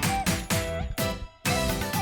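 Upbeat background music with a steady beat; it drops out briefly just past the middle and comes straight back in.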